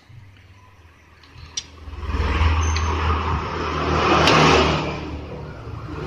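Motor vehicle engine going past: it comes in about two seconds in, is loudest a little past the middle, then eases off.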